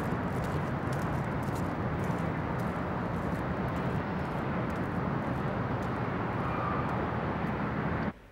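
Steady hum of city street traffic, an even outdoor rumble, cutting off abruptly just before the end.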